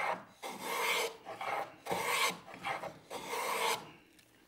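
Metal hand plane taking quick, repeated strokes along the edge of a hardwood board clamped in a vise, shaving a bevel. About six rasping passes come roughly every half second, then stop shortly before the end.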